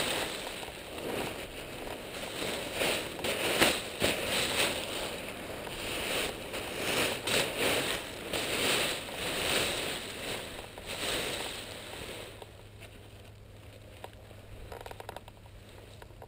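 Nylon paraglider wing fabric rustling and crinkling in irregular bursts as it is pulled out of its bag and spread on the ground. It dies down after about eleven seconds.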